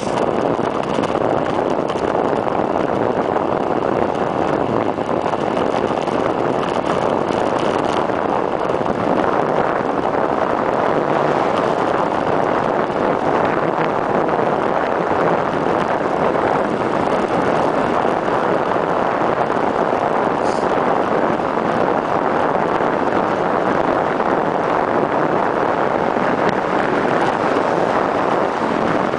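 Steady rush of wind buffeting a camera microphone mounted on a bicycle's stem during a fast downhill road descent.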